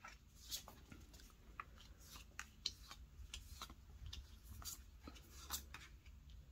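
Faint, irregular clicks and slides of tarot cards being laid down one after another in a row on a cloth-covered table.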